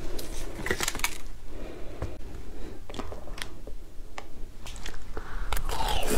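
Close-miked crunching and cracking of a frozen shaved-ice bar being bitten: scattered sharp crackles and clicks, growing denser and louder near the end.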